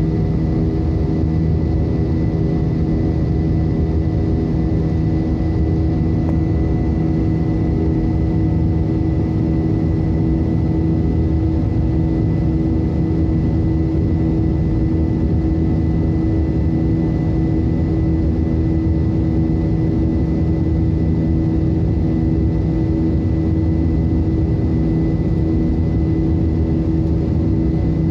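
Airbus A320 jet engines and airflow heard inside the cabin during the climb after takeoff: a steady drone with a thin, constant high whine.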